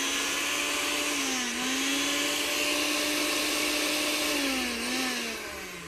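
Countertop blender motor running, blending a small batch of nettle pesto: a steady whine whose pitch dips briefly twice, then falls in pitch and fades near the end as the blender is switched off and spins down.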